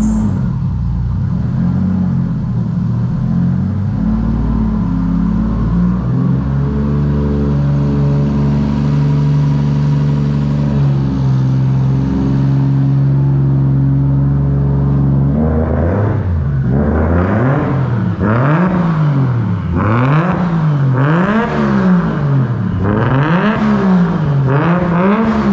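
Datsun 280Z's swapped-in Nissan RB-series straight-six idling steadily while warming up. About fifteen seconds in it is revved again and again, the pitch rising and falling roughly every one and a half seconds.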